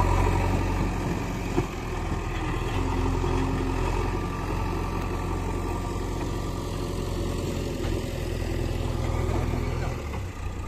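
JCB backhoe loader's diesel engine running steadily, with a low hum.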